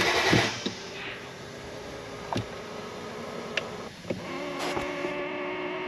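BMW N55 engine being cranked over by its starter without firing, its injection and spark harness unplugged so the cranking only primes the oil system; the cranking cuts off about half a second in. A quieter steady hum follows, with a few light clicks.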